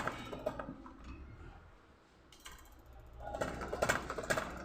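Metal hand tools clicking and rattling in a ratchet-like way, sparse at first, quieter midway, then busier in the last second and a half, over a faint low hum.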